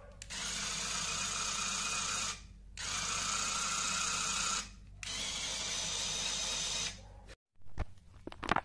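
Small electric motor driving a LEGO Technic gear train at speed: a steady whirring whine that runs in three spells of about two seconds each, with short stops between. A few sharp clicks and knocks come near the end.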